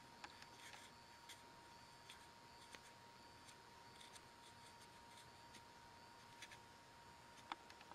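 Faint, scattered ticks and light scratching of a hot skew-tip woodburning pen drawing short strokes across tupelo wood, over a faint steady high whine.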